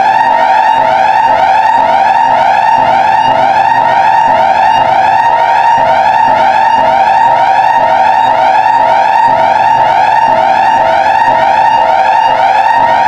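Emergency alert system alarm sounding loudly and continuously: a steady tone with rapid rising-and-falling sweeps over it, repeating about twice a second.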